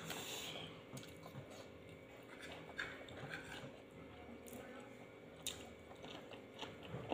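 Faint chewing and mouth sounds of people eating at a table, with scattered light clicks.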